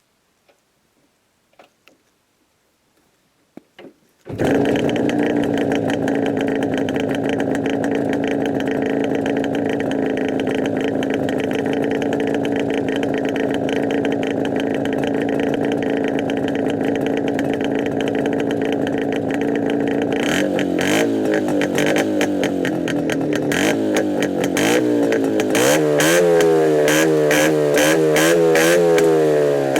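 IZh Jupiter-5 motorcycle's two-stroke twin-cylinder engine, running through a muffler with its baffles removed. It starts suddenly about four seconds in and idles steadily, then is revved up and down repeatedly over the last third.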